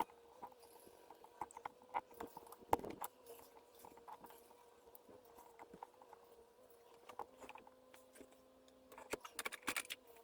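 Faint scattered clicks and rubbing as a plastic insert strip is worked under a rubber window seal, with a busier run of clicks about nine seconds in, over a faint steady hum.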